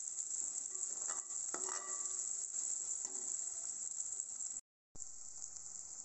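Chopped onion and tomato sizzling in oil in an aluminium pressure cooker, with a steady high hiss, while a steel spoon stirs them, scraping against the pot a couple of times in the first two seconds. The sound cuts out for a moment just before the end.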